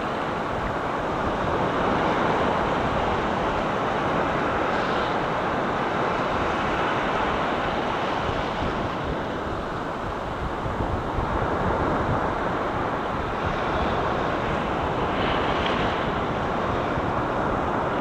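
Sea waves breaking and shallow foamy surf washing up a beach: a steady rushing, with the low rumble of wind buffeting the microphone.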